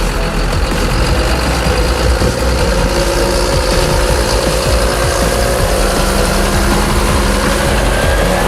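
John Deere 7720 tractor's 6.8-litre six-cylinder PowerTech diesel engine running steadily.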